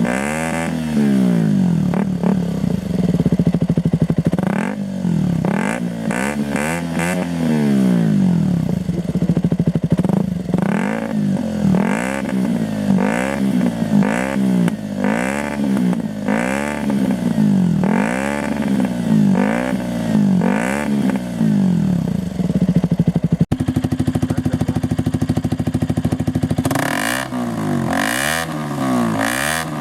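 KTM Duke 125's single-cylinder four-stroke engine revved in repeated quick blips through an aftermarket sport exhaust, dropping back toward idle between each one. After a break about two-thirds through it idles steadily for a few seconds, then the blips start again.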